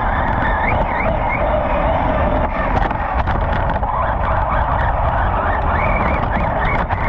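Losi Lasernut U4 radio-controlled buggy being driven: its brushless electric motor and drivetrain whine, rising and falling in pitch again and again with the throttle, over a steady rush of noise, with scattered sharp clicks.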